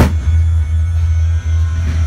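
Music with a heavy, steady bass, with one sharp bang right at the start.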